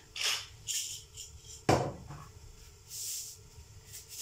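Salt and pepper being shaken into a mixing bowl: a series of short, dry rattling hisses, with one sharp knock about a second and a half in.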